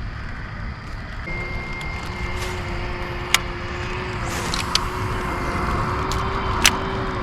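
A boat motor starts about a second in and runs with a steady, even hum over a low rumble, with a few sharp clicks and a short hiss partway through.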